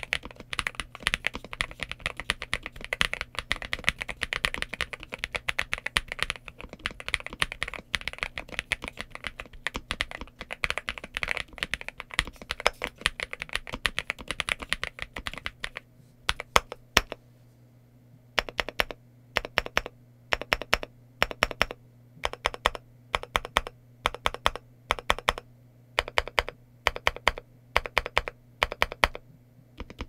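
NuPhy GEM80 mechanical keyboard with an FR4 plate, 70-durometer silicone sock, NuPhy Mint switches and mSA PBT keycaps, typed on quickly and continuously. After a short pause about two-thirds of the way in, single keys are struck one at a time at a slower, even pace.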